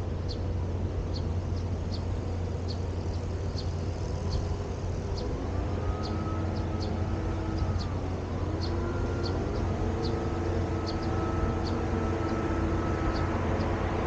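Outdoor urban ambience: a steady low hum with a motor's pitched tones that shift and rise around the middle, and short high chirps repeating about twice a second.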